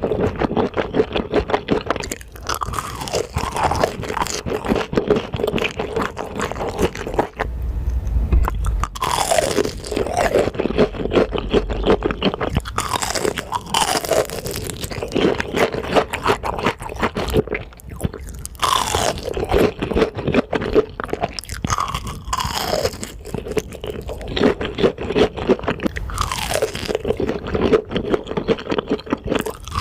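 Close-miked eating: dense crunching, biting and chewing of fast food. Short sounds falling in pitch come every few seconds among the crunches.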